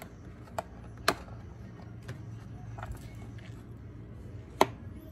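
Plastic top cover of a Stihl MS661C chainsaw being pressed into place and its twist-lock knob turned: a few sharp clicks, the loudest about a second in and near the end, over a steady low hum.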